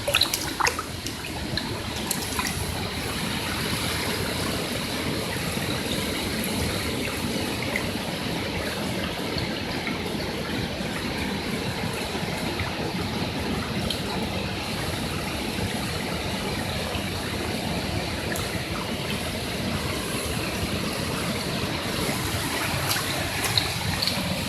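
Small waterfall pouring into a rocky plunge pool: a steady rush and trickle of falling water, with a few faint clicks near the start and near the end.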